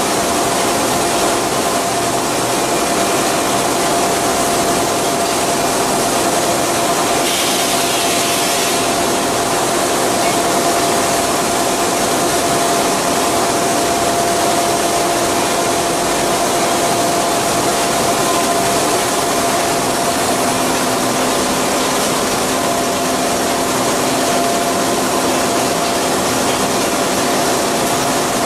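Steady running noise of copper rod casting-and-rolling line machinery, with a constant mid-pitched whine over it. A short hiss comes about seven seconds in, and a lower steady hum joins about twenty seconds in.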